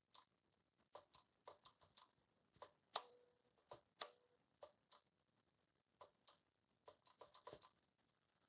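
Faint, scattered light metallic clicks and taps from handling the assembled magneto and trip latch, with two sharper clicks about three and four seconds in that ring briefly.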